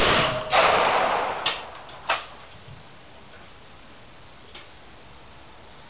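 Shotgun shots on a trap-shooting line: a loud report about half a second in that rings on for about a second, then two shorter, fainter cracks at about one and a half and two seconds.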